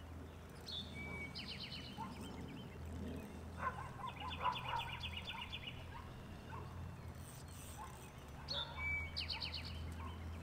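A songbird singing short, rapid trills about four times, each lasting under a second and a half, over a steady low wind rumble on the microphone.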